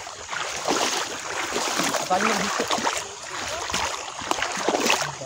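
Footsteps splashing through shallow water on a flooded path, with wet grass brushing past: an irregular run of splashes and swishes.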